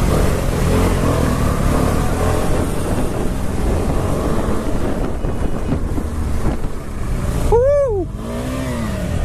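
Single-cylinder engine of a KTM 390 Adventure running under load on a rough off-road climb, with steady low rumble and wind noise. About seven and a half seconds in, a brief loud tone rises and falls, followed by a lower one.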